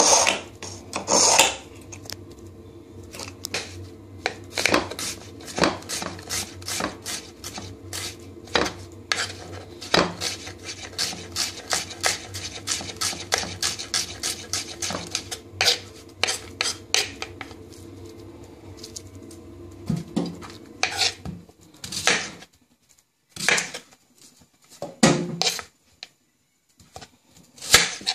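A kitchen knife drawn through a small manual knife sharpener at the start, then slicing an onion on a wooden chopping board: a long run of quick knife knocks on the board, three or four a second, thinning out near the end. A steady low hum sits underneath and stops about two-thirds of the way through.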